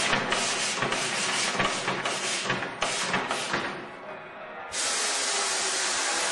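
Pressurised air hissing: a rapid run of short, uneven hisses, about three a second, then after a brief lull a steady continuous rush of air starts about three-quarters of the way through.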